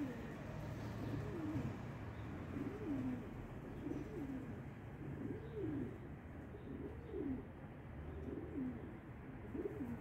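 Pigeons cooing: a series of low calls that rise and fall, about one a second, from several birds.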